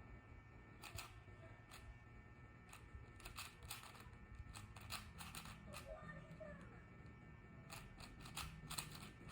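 Plastic 4x4 Rubik's cube being turned by hand: faint, irregular clicks and clacks as its layers snap round, some single and some in quick runs.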